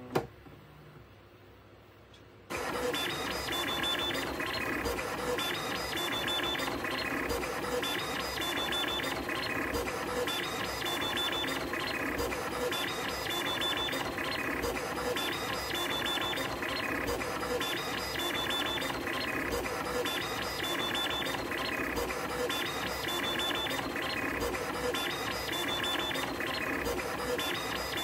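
Stepper motors and belts of a small belt-driven 3D printer driving the toolhead carriage back and forth at high speed in a speed test: a busy whine with high singing tones, in a pattern of moves that repeats about every two seconds. It starts suddenly a couple of seconds in, after a single click.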